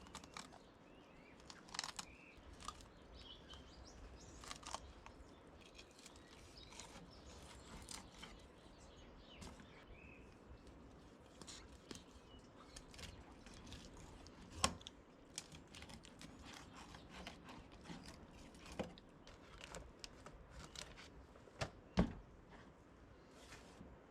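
Quiet outdoor ambience with scattered light clicks and crackles and a few faint bird chirps, with two sharper knocks about fifteen and twenty-two seconds in.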